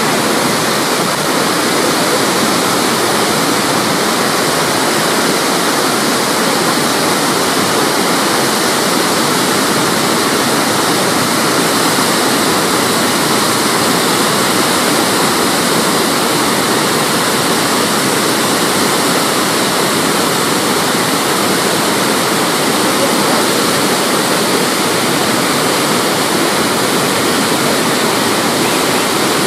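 Hogenakkal waterfall on the Kaveri river: water pouring over the falls in a loud, steady rush that does not change.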